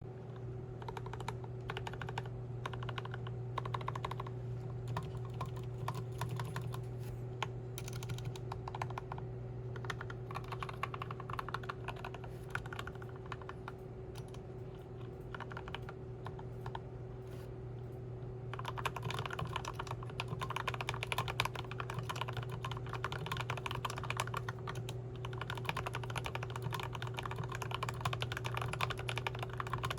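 Typing on a Tokyo60 60% mechanical keyboard fitted with Turquoise Tealio linear switches lubed with Krytox 205g0: a rapid, continuous run of keystrokes that gets busier and louder a little past halfway. A steady low hum runs underneath.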